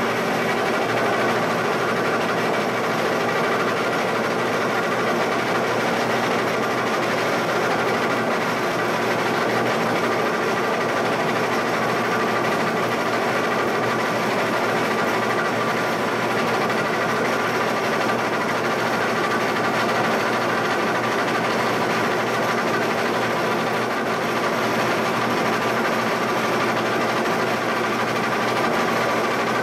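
Giddings & Lewis horizontal boring mill running steadily, a continuous machine hum with a steady gear whine, while its spindle head carries a dial indicator along a machined face.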